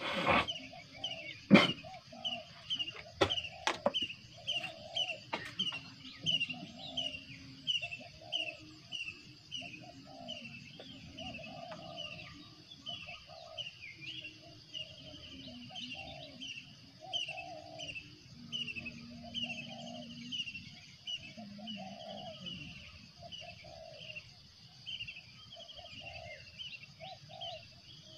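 Birds calling in a rapid series of short, high, falling chirps, about two a second, over a lower repeated call and a steady high insect buzz. A few sharp knocks fall in the first few seconds, the loudest about a second and a half in.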